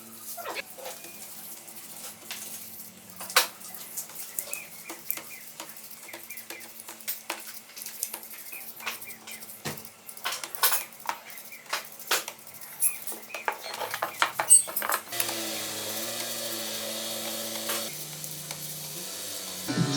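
Metal engine parts and hand tools clinking and clattering in a run of sharp, irregular knocks and clicks. Background music comes in during the last few seconds.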